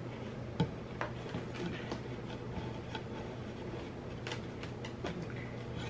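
Scattered faint clicks and taps as the parts of a paper-plate holder are handled and a spindle is worked into its hole, over a steady low hum.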